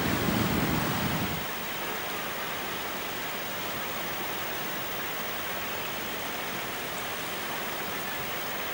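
A rushing meltwater river, loud and deep, for about the first second and a half. Then it gives way to a steady, even hiss.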